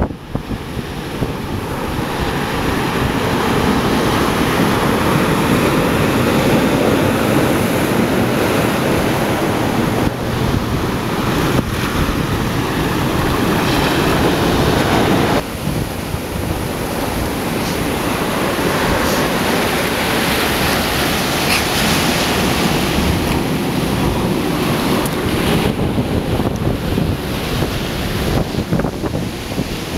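Ocean surf breaking and washing over a rocky beach, with wind buffeting the microphone. The noise is steady and loud, dropping abruptly about halfway through.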